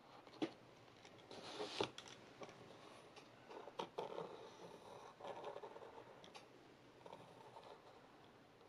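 Faint pencil scratching on paper in short, uneven strokes, with a few light clicks.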